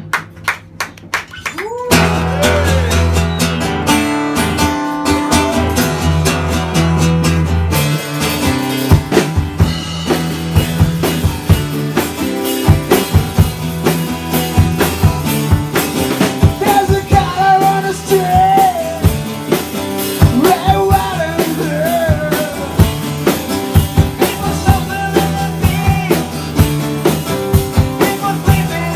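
Live rock band playing acoustic guitar and drum kit. The full band comes in about two seconds in, after a quieter start with a few sharp ticks. Partway through, a male singer comes in on lead vocals.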